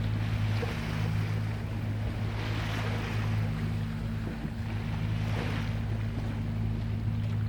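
A boat engine runs with a steady low hum, and water splashes and washes against the hull in swells about two and a half seconds in and again about five and a half seconds in.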